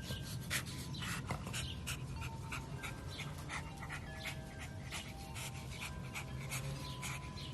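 A dog panting in quick, irregular breaths, over a steady low hum.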